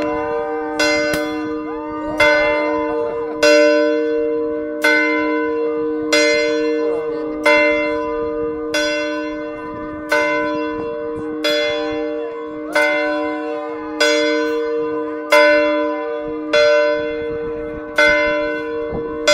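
A single large bell, swung by a rope, tolling steadily about once every 1.3 seconds. Each stroke rings on under the next, so a steady hum carries through.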